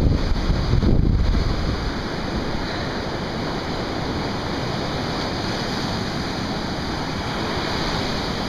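Surf breaking and washing up the beach in a steady hiss, with wind buffeting the microphone, heaviest in the first second or so.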